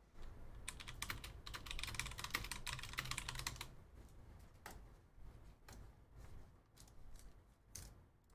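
Typing on a computer keyboard: a quick run of key clicks lasting about three seconds, then a few scattered clicks.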